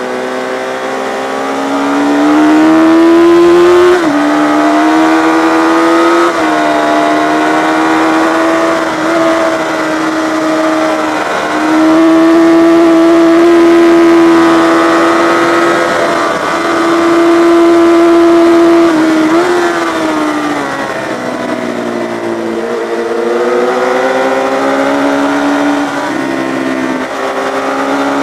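Yamaha FZ600 air-cooled inline-four engine at racing revs, held high with sudden drops in pitch at gear changes. About two-thirds through the revs fall away over a couple of seconds, then climb again.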